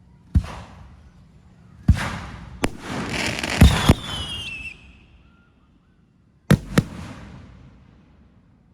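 Fireworks bursting in a series of sharp bangs, several in quick succession. A burst of crackling and a short falling whistle come about halfway through, then two quick bangs near the end.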